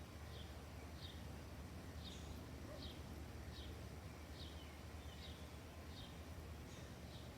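A bird repeating a short, high chip note that falls slightly in pitch, about once every three-quarters of a second, over a steady low rumble.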